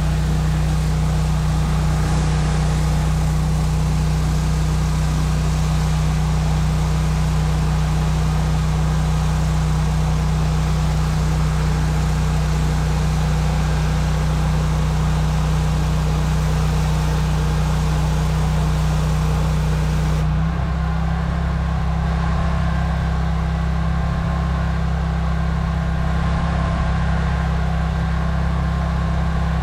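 Gas engine of a pressure washer running steadily with a low hum, with high-pressure water spray hissing over it. About two-thirds of the way through, the hiss drops off and the engine's tone shifts slightly while it keeps running.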